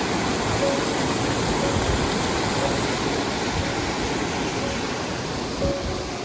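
Steady rush of a waterfall, falling water pouring down the rocks.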